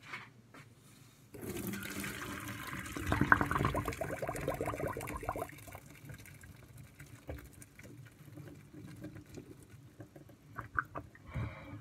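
Hot pasta water poured from a stainless steel pot through a mesh strainer into a sink. The gush of splashing water starts about a second in, is loudest for the next few seconds, then dies down as the pot empties.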